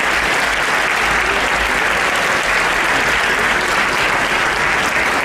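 Audience applauding steadily at the end of a choir's song.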